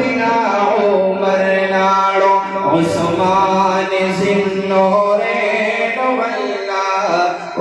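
A man's voice chanting a naat, an Urdu devotional poem in praise of the Prophet, with no instruments. It moves in long held notes that glide from one pitch to the next.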